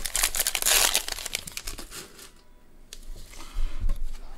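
A trading-card pack's foil wrapper crinkling and tearing as it is ripped open. It is dense and loudest for about the first second, then gives way to softer, scattered rustling.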